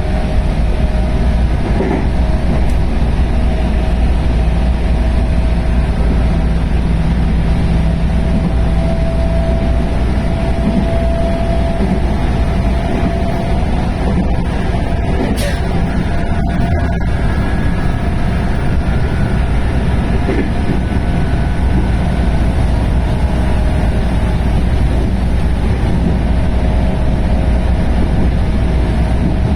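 JR West 221 series electric train running at speed: a steady heavy rumble of wheels on rail with a faint whine from its DC series-wound traction motors (field-added excitation control).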